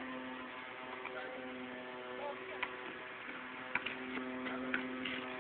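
A basketball bouncing on a hard court, three bounces about a second apart from halfway through, over a steady electrical hum.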